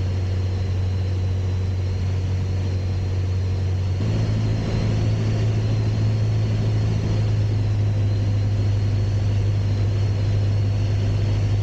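Piper Archer's four-cylinder piston engine and propeller droning steadily in the cabin on a throttled-back approach. The drone gets a little louder and rougher about four seconds in.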